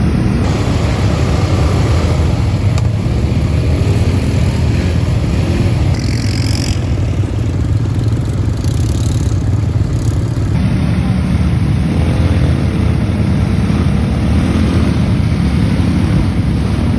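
Motor vehicle engine running steadily, a continuous low rumble.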